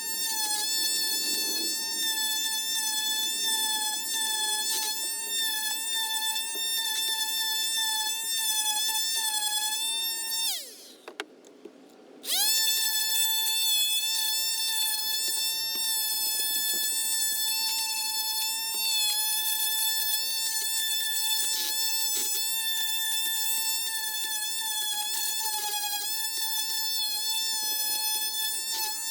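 Small electric power tool motor running with a steady high whine. It winds down and stops about ten seconds in, then is switched back on about a second and a half later and spins up again.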